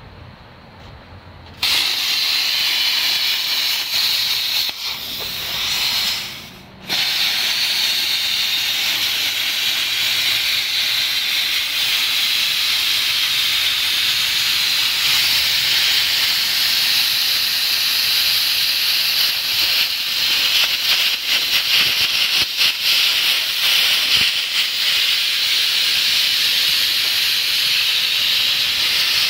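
Plasma cutter cutting through the sheet-steel fender of a 1981 Honda Civic: a loud, steady hiss from the arc and air jet. It starts abruptly about a second and a half in, cuts out briefly around six seconds, then runs on.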